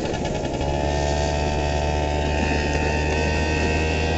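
Honda Elite SA-50 scooter's small two-stroke engine running steadily, its sound growing fuller about half a second in.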